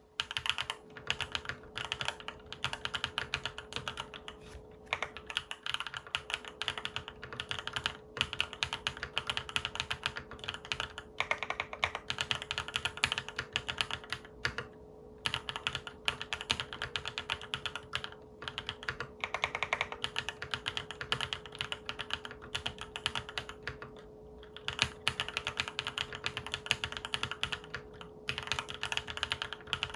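Fast typing on a full-aluminium tenkeyless mechanical keyboard (Monggeek M3) with Akko Cream Yellow Pro linear switches: dense runs of key clacks broken by brief pauses every few seconds. A faint steady hum runs underneath.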